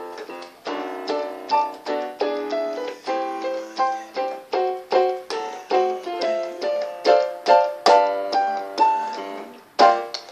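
Digital piano played with both hands: a flowing run of chords and melody notes, each struck and fading, in a passage built around an F9 chord. Near the end it thins out briefly before a fresh loud chord.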